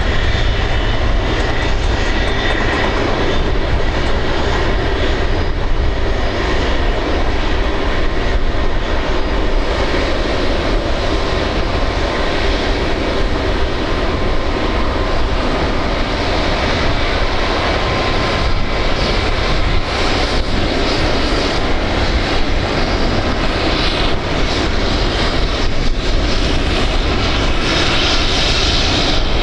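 Airbus Beluga XL (A330-700L) jet engines running, a steady loud noise with a faint whine in it.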